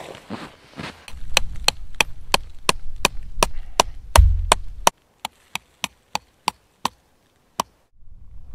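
Tent stakes being hammered in: a run of sharp, evenly spaced knocks, about three a second, with one deep thud about four seconds in. The knocks stop shortly before the end.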